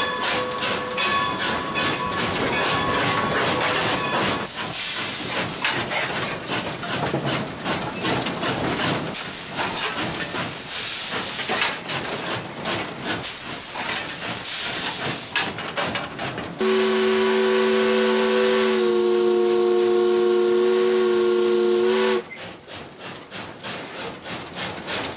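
Steam locomotive hissing in long bursts of escaping steam, then one long blast of its steam whistle, several tones sounding together, starting about 17 seconds in and lasting about five seconds, its pitch dipping slightly partway through. A fast rhythmic beat runs before the hissing and again after the whistle.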